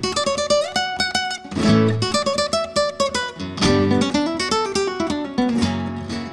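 Acoustic guitar music in a Spanish, flamenco-like style: quick runs of plucked notes broken by strummed chords, fading out near the end.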